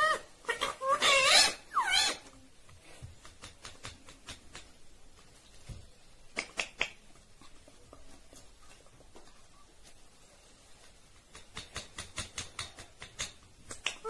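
Indian ringneck parrot giving a few short gliding calls in the first two seconds, then mostly quiet. Sharp clicks follow, a pair about halfway through and a quick run of them near the end, as its beak chews on a small object.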